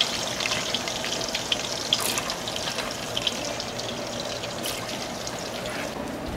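Diced potatoes frying in a pot of oil: a steady sizzle with scattered crackles, and a couple of light clicks.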